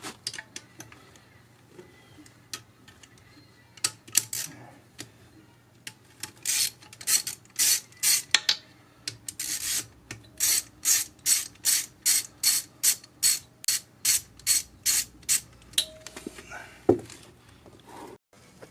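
Hand ratchet clicking in a long series of quick back-and-forth strokes, about two to three a second, loosening bolts on the engine. A few scattered clicks come before it, and a single knock near the end.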